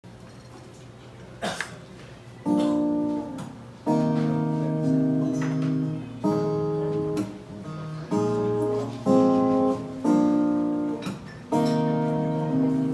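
Acoustic guitar playing an intro, chords struck one after another and left to ring. It comes in about two and a half seconds in, after a short low stretch with a single click.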